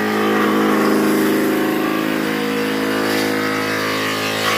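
Woodworking machine running: a constant motor hum under a loud, steady rushing noise.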